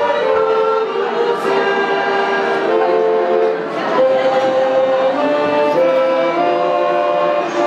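Mixed choir of older singers singing in unison, with piano accordion accompaniment, held notes moving every second or so.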